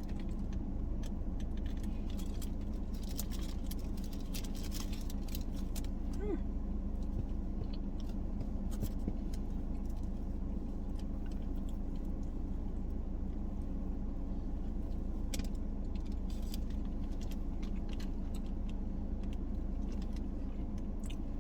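Steady low hum of a car cabin with the engine idling, under scattered crinkles and clicks of food and its paper wrapper being handled and bitten into, busiest in the first few seconds and again past the middle.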